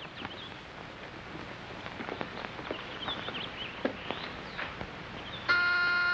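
Footsteps on a porch with faint bird chirps, then an electric doorbell buzzer pressed near the end: a loud, steady buzz.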